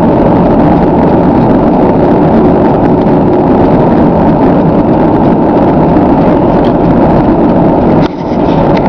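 Steady, loud road and wind noise of a car travelling at highway speed, heard from inside the car. The noise dips briefly about eight seconds in.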